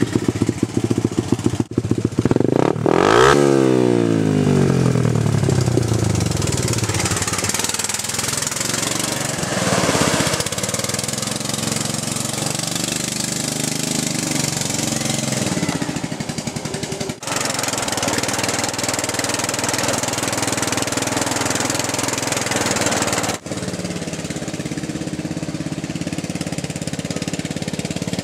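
Off-road Craftsman LT1000 lawn tractor's Briggs & Stratton 16.5 hp engine running under throttle as it is driven. About three seconds in, its pitch drops sharply.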